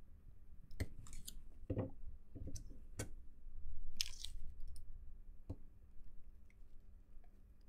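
Handling noise from the plastic front frame of a PocketBook 614 e-reader being moved and turned on a rubber work mat: scattered sharp clicks and taps, with a short scratchy rustle about four seconds in.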